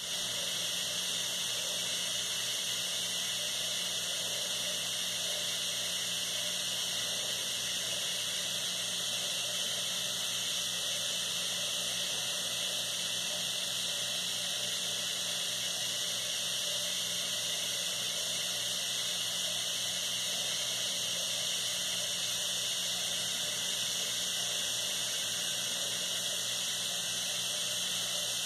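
Steady high-pitched hiss with a faint low hum beneath it, unchanging throughout.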